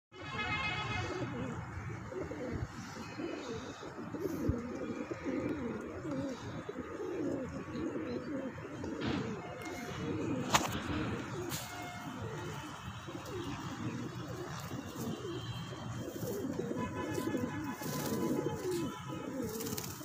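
A flock of domestic pigeons cooing together in a continuous, overlapping chorus of low, wavering coos. There is one sharp click about halfway through.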